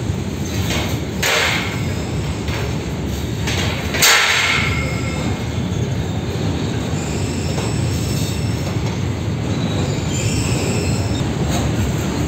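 Open box wagons of a long freight train rolling past close by: a steady rumble and clatter of wheels on rail. There is a sharp clank about four seconds in, the loudest moment, followed by faint wheel squeal.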